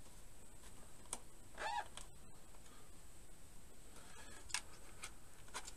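A few faint clicks and rustles of cables and plastic connectors being handled inside a PC case, the sharpest click about four and a half seconds in.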